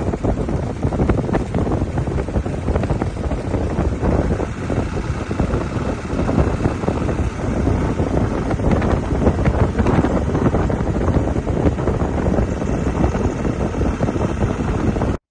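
Wind rushing over the microphone of a moving vehicle, with road and vehicle noise underneath, steady and rough throughout. It cuts off suddenly near the end.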